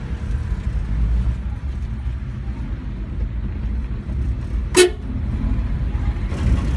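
Steady low engine and road rumble inside the cab of a Mitsubishi T120SS pickup on the move, with one short horn toot just before five seconds in.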